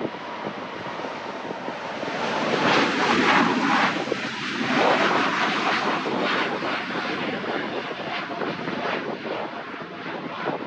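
Boeing 747-8i's four GEnx jet engines at takeoff thrust as the airliner lifts off and climbs away. It is a loud rushing roar, loudest about three seconds in, with a swirling, phasing sweep as it passes closest, then slowly fading.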